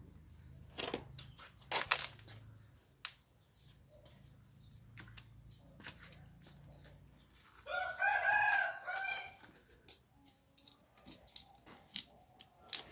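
A rooster crows once, about eight seconds in. Scattered clicks and scrapes come from a hand digging soil out of a terracotta pot around the roots of a desert rose.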